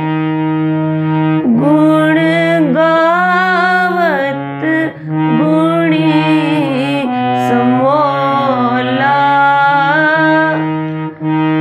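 Harmonium playing the kirtan melody of the shabad, its reeds holding steady low notes, with a woman's voice singing along in gliding, ornamented phrases. There are brief breaks between phrases about five seconds in and near the end.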